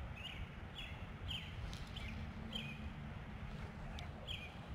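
A small bird calling over and over, a short chirp about twice a second, over a low steady rumble.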